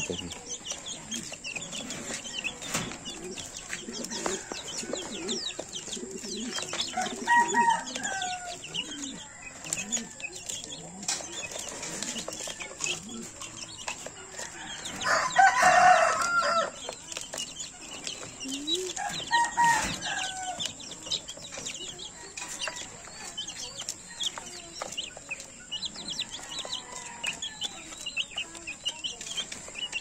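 Native chicken chicks peeping and pecking at feed in a plastic feeder, with many short high chirps and small clicks throughout. Louder chicken calls sound now and then; the loudest comes about halfway through and lasts a second or so.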